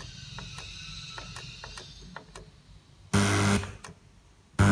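AM radio tuned across the band on a Kenwood T-76 tuner, through the stereo's speakers: hiss and crackle with many quick clicks between stations, then loud short blasts of a station's audio about three seconds in and again near the end.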